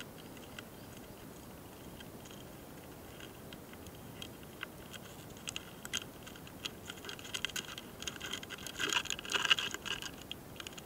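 Close-miked scratchy ticks and clicks from a mating pair of small longhorn beetles (hosotora-kamikiri) on a twig. They are sparse at first, grow denser, and come in a thick, loudest cluster near the end.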